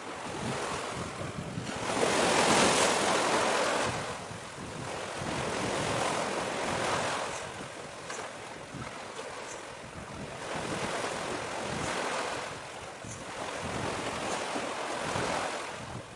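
Sea waves washing ashore in slow surges about every four seconds, the loudest a couple of seconds in, with wind buffeting the microphone.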